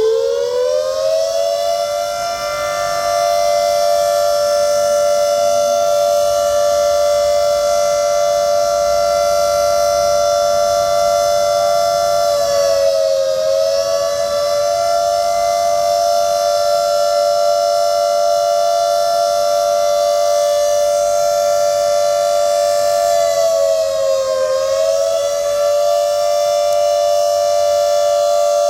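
Civil defence siren winding up to a steady wail in the first two seconds, then holding it, with two brief dips in pitch. It is sounding the alert for a civil defence drill.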